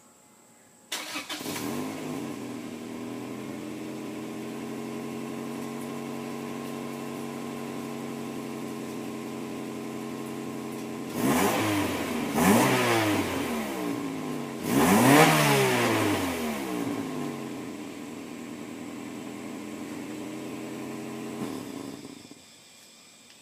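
Freshly rebuilt Acura Integra GS-R DOHC VTEC four-cylinder engine starting about a second in, catching at once and settling into a steady idle. It is revved three times in quick blips, the last the loudest and longest, drops back to idle, and is shut off near the end.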